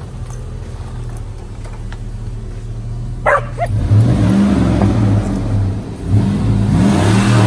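Chevrolet Silverado pickup's engine idling steadily, then revved in a few rising and falling surges from about four seconds in. Just before the revving, a dog gives a short high yelp.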